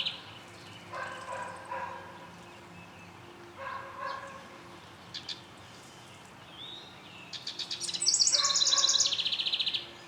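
A songbird sings a loud, rapid trilled phrase near the end that steps down in pitch, after a few shorter, softer, lower calls earlier on.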